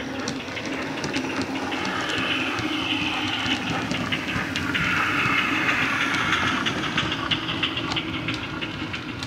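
Bachmann 64XX pannier tank model with a Wheeltappers DCC sound decoder running past, its small speaker playing steam locomotive sound with hiss, amid many sharp clicks. It grows louder to a peak about halfway through as the loco passes, then eases off.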